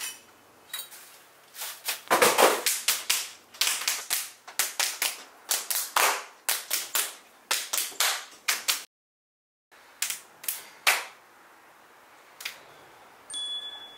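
Rapid, irregular hand slaps and claps, sharp smacks of skin on skin, a dozen or more in quick succession, with the sound cutting out completely for under a second near the middle and only a few slaps after that.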